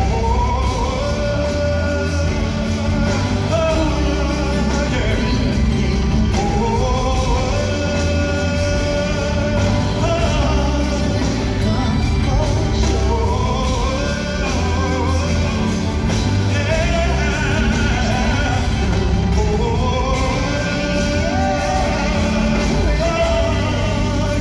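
Live R&B ballad played by a band in a large hall, with a lead singer's gliding vocal lines over a steady bass and keyboard bed.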